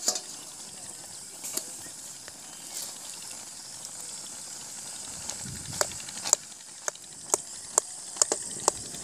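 Goat blood cooking in a metal kadai over a wood fire, with a steady hiss from the pan. A sharp clank comes right at the start as the lid comes off. From about six seconds in, a steel ladle knocks against the pan about twice a second as the blood is stirred.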